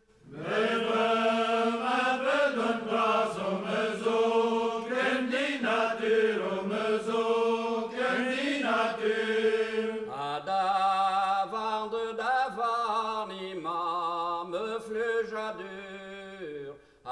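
Slow, chant-like singing, with held and gliding sung notes; the sound changes character about ten seconds in.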